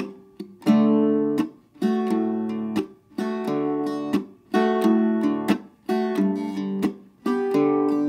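Octave mandolin strummed in a rhythm pattern. Each chord rings briefly and is then cut off by damping the strings, and short percussive chop strokes fall between the chords, a mix of strumming and chopping.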